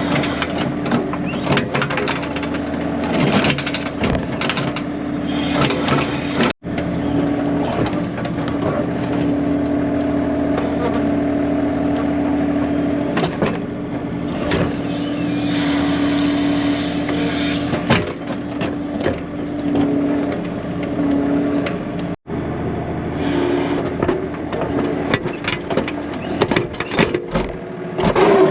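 John Deere 3039R compact tractor's diesel engine running steadily under working load, with clanks and knocks from the 385A backhoe and bucket working the ground. The sound breaks off for an instant twice.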